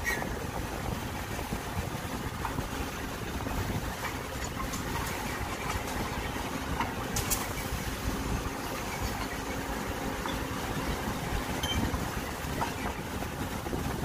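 CAT 426F backhoe loader's diesel engine running steadily as the backhoe arm works, with one short sharp knock about seven seconds in.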